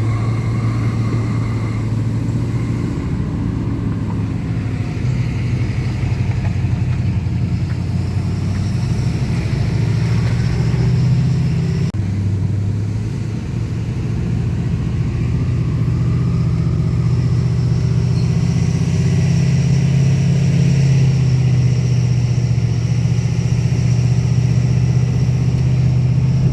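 Pickup truck under way towing a loaded trailer: a steady low engine and road drone. The engine eases off briefly about halfway through and then builds back up.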